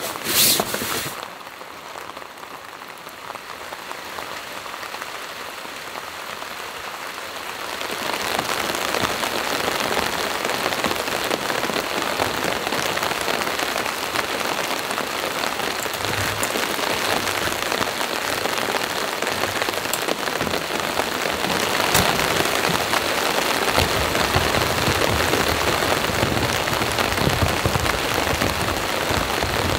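Heavy rain pouring steadily, quieter at first and louder from about a quarter of the way in. A sharp click comes right at the start, and a low rumble sits underneath in the last few seconds.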